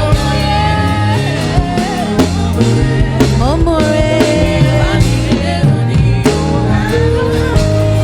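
Live gospel worship band music playing on between sung lines, with a steady bass, a regular drum beat and a melodic lead line.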